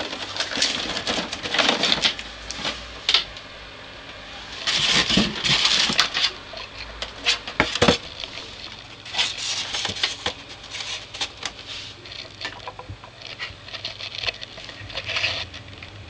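Cardboard box and polystyrene packing insert being handled: irregular rustling, scraping and sharp knocks in bursts, with short pauses between.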